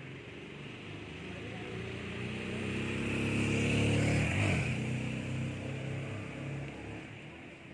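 A motor vehicle passing by: its engine and tyre noise swell to a peak about four seconds in, the pitch drops as it goes past, and then it fades away.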